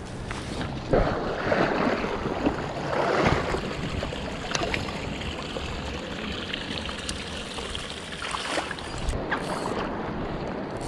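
River water rushing and splashing at the shallow gravel edge of the river, louder for a couple of seconds near the start, with a few faint clicks from handling.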